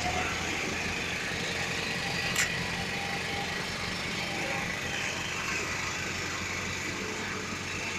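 Steel-drum road roller's diesel engine running steadily as it compacts freshly laid asphalt, with a short sharp click about two and a half seconds in.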